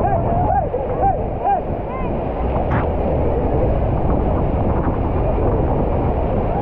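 Steady roar of churning whitewater and the tour boat's engine close under the waterfall spray. During the first two seconds a voice repeats short rising-and-falling cries about twice a second.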